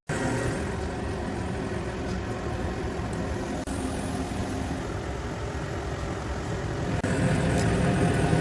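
A machine running steadily with a low rumble, growing a little louder about seven seconds in.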